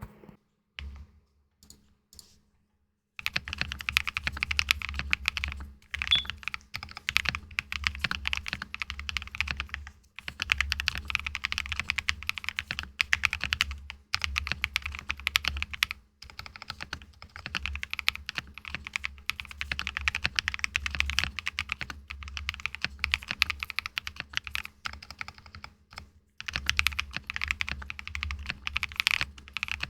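Typing sound test on a freshly assembled custom mechanical keyboard with a plate, foam and stabilizers: fast, continuous runs of key presses starting about three seconds in, broken by a few short pauses.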